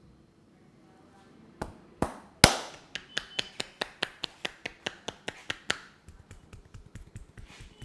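Percussive head-massage strokes, hands slapping on the head: three hard slaps, then a steady run of about five slaps a second for around three seconds, then lighter, quicker patting near the end.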